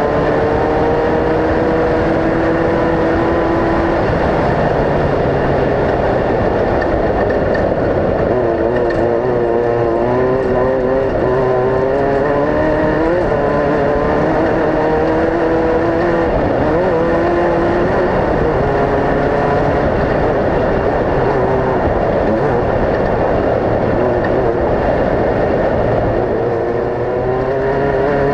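Off-road race vehicle engines running hard, several at once, their pitches rising and falling as they rev and pass.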